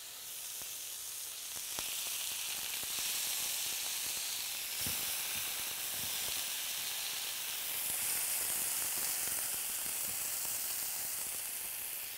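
Marinated chicken skewers sizzling on a hot stovetop grill. The sizzle swells about two seconds in and again past the middle, with a few light taps.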